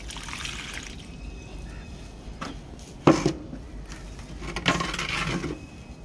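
Water poured from a plastic bucket into a freshly filled plant pot, splashing onto the soil as the pot fills. A sharp knock about three seconds in, and another burst of splashing near the end.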